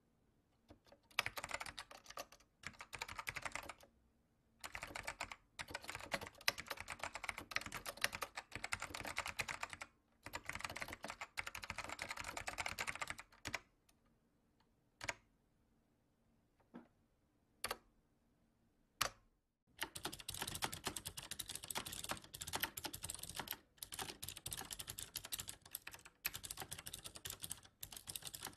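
Typing on a computer keyboard: runs of fast keystrokes, then a pause of several seconds in the middle broken by a few single key presses, then steady typing again.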